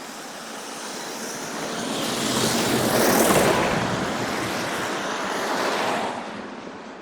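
A vehicle passing close by on a snowy street, its tyres hissing through the snow and slush. The sound swells to a peak a little past the middle, then fades near the end.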